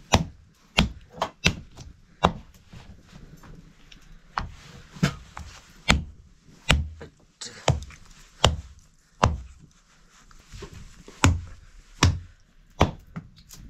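A knife chopping raw pork on a round wooden chopping board. The sharp chops come irregularly, a little more than one a second, with a short pause about ten seconds in.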